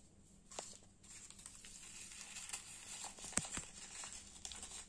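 Paper seed packets being unfolded by hand: soft crinkling and rustling of rain-softened paper, with a few small clicks, the sharpest about three and a half seconds in.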